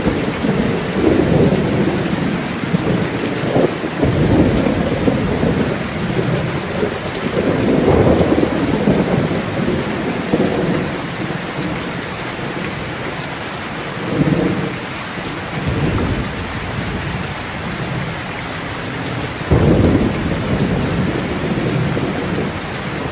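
Steady rain with rolling thunder: low rumbles swell and fade several times over the rain, the strongest starting abruptly about four seconds in and again near the end.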